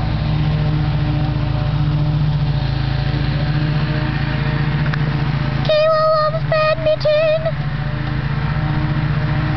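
A steady low motor drone, like an engine running, with a loud high wavering squeal in three short pieces about six to seven and a half seconds in.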